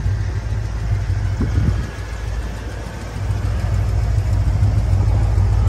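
Chevrolet 350 V8 with headers and Flowmaster mufflers idling, a steady low rumble.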